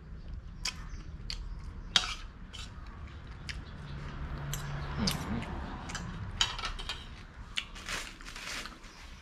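Eating soup with a spoon: several sharp clinks of a metal spoon against the dish, the loudest about two seconds in, between sounds of chewing.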